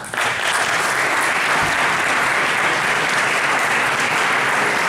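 Audience applauding, breaking out all at once and then keeping up at an even level.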